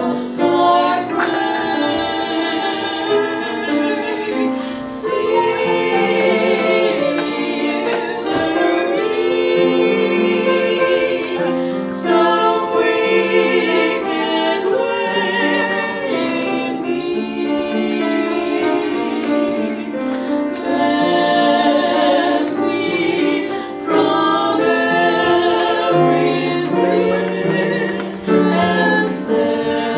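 Four female voices singing a hymn together in harmony, holding long notes.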